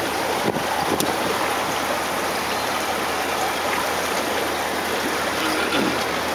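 Steady rushing noise of a boat under way on a river: water and wind streaming past, without a break.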